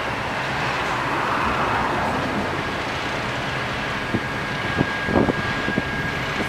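Engine of heavy track-work machinery running steadily, with wind on the microphone. A few short sharp knocks come between about four and six seconds in.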